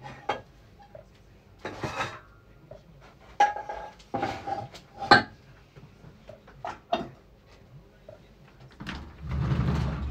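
Kitchenware clattering as pots and pans are handled and a cupboard is rummaged: a series of separate sharp knocks and clanks, then a longer, louder rustling clatter near the end.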